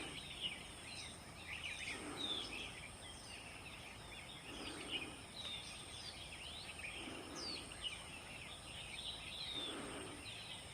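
Small birds chirping faintly: many quick, high chirps and short sweeping notes overlapping, with a soft low call repeating about every two and a half seconds.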